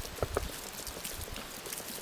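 Water being poured from a container over firewood: a couple of gulping glugs early on, then a faint steady splashing.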